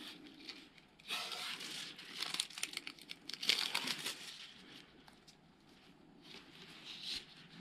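RTP tennis overgrip strip crinkling and rustling as it is pulled and wound around the racket handle. It comes in noisy bursts about a second in and again around three and a half seconds, with fainter rustles near the end.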